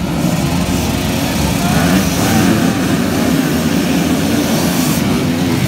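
A pack of motocross dirt bikes revving hard and accelerating off the starting line together, many engines running at once in a dense, loud mass of sound.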